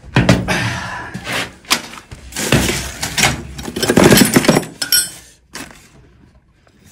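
Plastic PVC pipe fittings and tools clattering and rattling as a hand rummages through a packed plumber's toolbox, dense and irregular for about five seconds, then mostly dying down.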